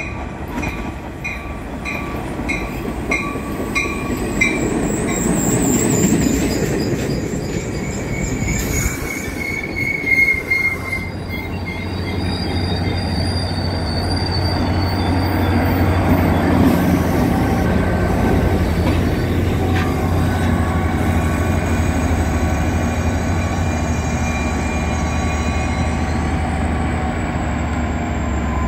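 Caltrain push-pull commuter train arriving and braking to a stop: a bell rings about twice a second for the first few seconds, the wheels and brakes squeal as it slows, then from about ten seconds in the steady low hum of the EMD F40PH diesel locomotive at the rear runs under the rumble of the cars.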